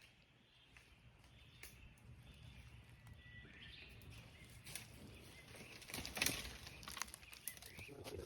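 Faint outdoor ambience with a low rumble, a few short bird-like chirps, and scattered knocks and rustles, the loudest knock about six seconds in.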